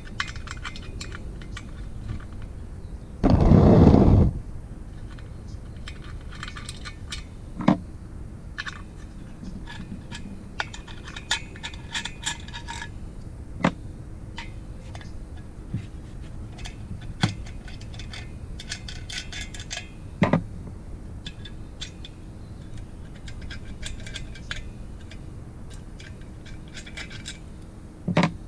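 Hand tools and small metal parts clinking, tapping and scraping while the case cover is taken off a motorized-bicycle engine, with a loud burst of noise lasting about a second near the start.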